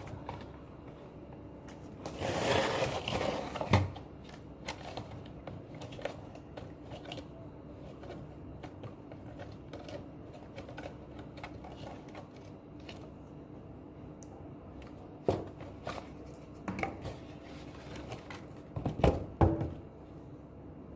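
Hands handling a toy car's box and packaging. There is a burst of rustling about two seconds in, then scattered light clicks and knocks, with a few louder knocks near the end.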